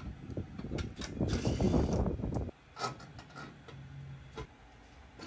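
Wrench working a bolt on the truck's front end: a rapid, dense clicking rattle for about two and a half seconds that stops abruptly, then a few fainter scattered clicks.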